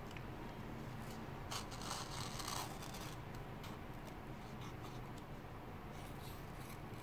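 A bare 9 mm Olfa 60-degree snap-off cutter blade, held in the fingers, is drawn sideways into the edge of a sheet of A4 paper in scratchy rasping strokes. The strokes are strongest from about one and a half to nearly three seconds in, with more briefly around three and a half seconds. The blade snags and tears the paper rather than slicing it cleanly.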